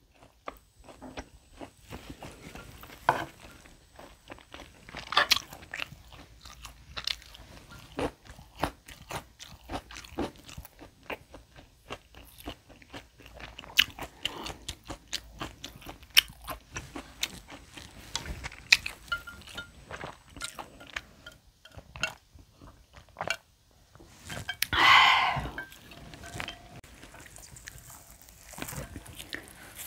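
Close-up eating sounds of a bone-in tomahawk steak being bitten and chewed: irregular wet mouth clicks and smacks throughout. About 25 seconds in there is one longer, louder noisy sound.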